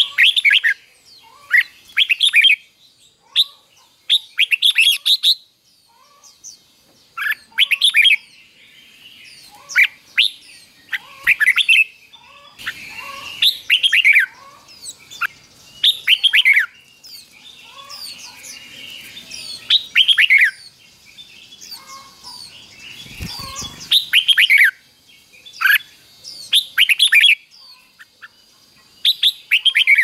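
Red-whiskered bulbul singing its doubled song: short, loud phrases of quick falling whistled notes, repeated every second or two.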